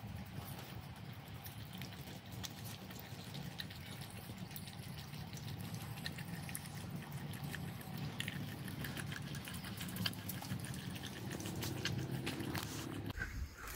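A dog eating soupy rice and cooked vegetables from a stainless steel bowl: wet lapping and smacking, a rapid run of small liquid clicks over a steady low hum.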